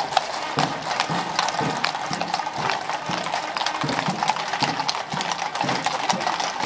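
Hooves of a group of mounted horses at a walk on a paved street, many overlapping irregular clip-clops.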